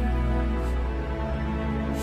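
Background music with slow, held notes over a low drone.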